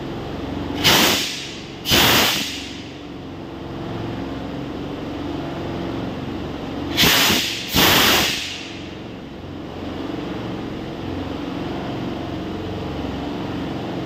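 Steam blasting from the drain taps under steam-jacketed kadhai pans as they are opened. There are four short, loud hisses in two pairs, each dying away quickly, over the steady hum of the running steam plant.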